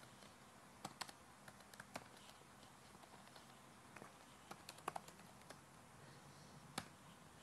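Computer keyboard being typed on: faint, irregular keystrokes, several clustered a little past the middle.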